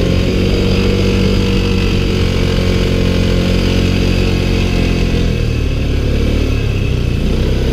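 ATV (quad) engine running loudly under way, its pitch dropping about five seconds in as it slows down.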